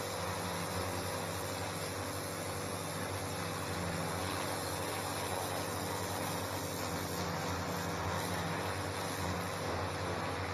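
Stihl pressure washer running steadily: a hum, with the hiss of its water jet spraying onto patio paving slabs.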